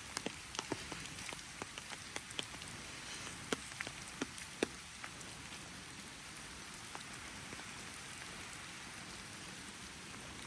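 Steady rain falling, with scattered sharp ticks of large drops striking close by. The ticks are more frequent in the first half and thin out after about five seconds.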